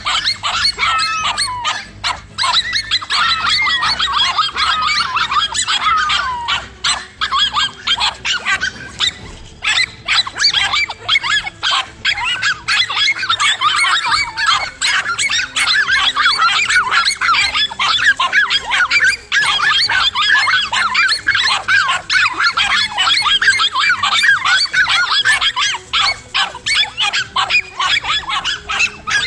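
Several dogs barking and yapping in quick, overlapping calls with hardly a break, as a pack does when holding a cornered reptile at bay.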